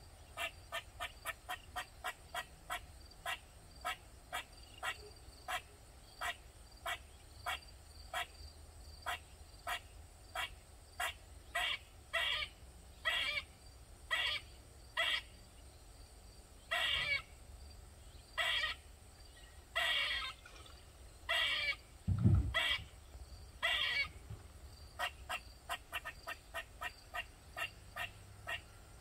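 Eastern gray squirrel calling over and over: short, sharp barks about two to three a second, which slow to longer drawn-out calls about a second apart in the middle and speed up again near the end. These are the squirrel's persistent alarm calls. One low thump comes about two-thirds of the way through.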